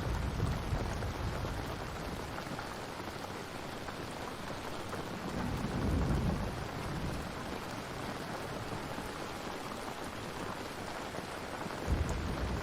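Steady rain ambience with low rumbles of thunder, swelling at the start, about six seconds in, and again near the end.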